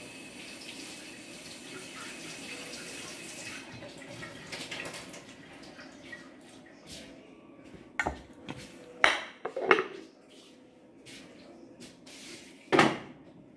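Kitchen sounds: water running from a tap for the first few seconds, then a handful of sharp clanks of pots and pans, the last near the end as a lid is lifted off a pot on the stove.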